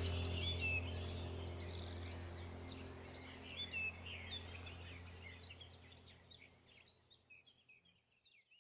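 Small songbirds chirping and twittering in quick, overlapping calls over a low steady drone, everything fading out to silence near the end.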